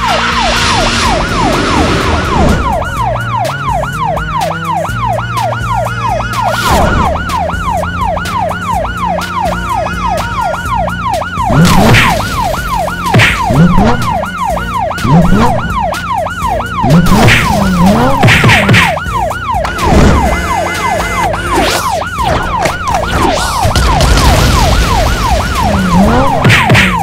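Cartoon police car siren, a fast yelp: a wail sweeping up and down two to three times a second without a break, over a music bed.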